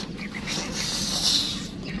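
A person slurping a mouthful of half-cooked fried instant noodles, a hissing slurp lasting about a second, with chewing.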